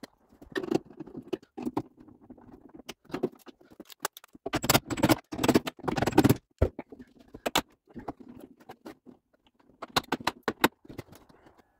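Irregular clicks, knocks and scrapes of metal and plastic parts handled inside a BMW E46 door shell as the door lock actuator is fitted at the latch, with a louder burst of rattling about halfway through.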